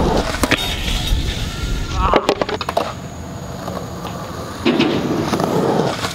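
Skateboard on a skatepark rail and concrete: the board smacks down and rolls off at the start, a quick run of sharp clacks a little past two seconds in, then a scraping slide along the rail near the end.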